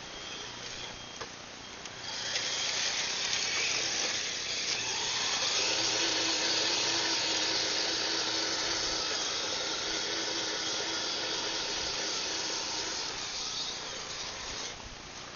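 Electric motor and gear-driven tracks of a Tamiya Blizzard SR radio-controlled snowplow whining as it drives. The whine starts about two seconds in, steadies into a higher tone a few seconds later, and stops shortly before the end.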